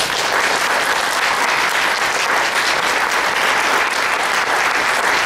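An audience applauding steadily, many hands clapping at once, starting right at the close of a lecture.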